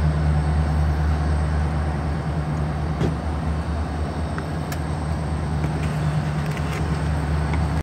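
A steady low engine hum, like an engine idling, with a few faint clicks in the middle.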